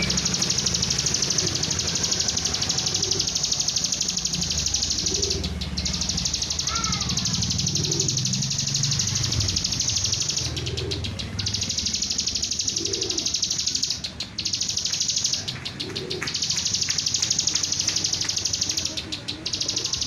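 Bar-winged prinia (ciblek) singing: a rapid, high-pitched buzzing trill held in long runs with short breaks between them, over a steady low background rumble.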